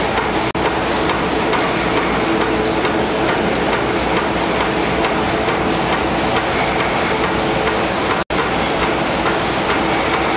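Reel-to-pack continuous stationery converter, a reel-fed printing machine printing up to eight colours, running: a loud, steady mechanical clatter. The sound briefly cuts out twice.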